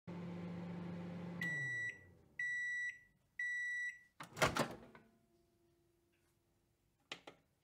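Microwave oven running with a steady hum that winds down as the cycle ends, followed by three even beeps about a second apart. Then the door pops open with a clunk, and there are a couple of faint clicks near the end.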